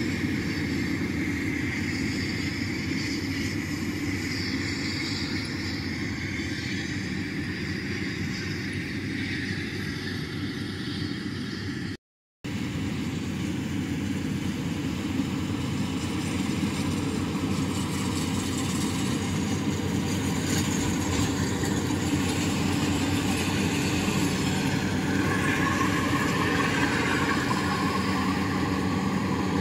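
Rice combine harvester's engine running steadily as it cuts, growing louder in the second half as the machine draws nearer. The sound drops out completely for a moment about twelve seconds in.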